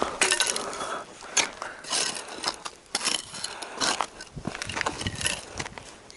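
Irregular clinks, knocks and rattles of small objects being handled and moved about, as in rummaging through things for a lost matchbox.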